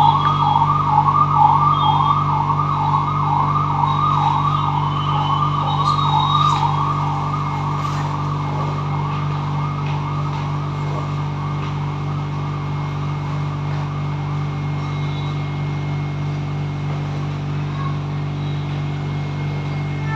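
A fast-warbling siren, its pitch rising and falling about twice a second, fading out about halfway through, over a steady low hum.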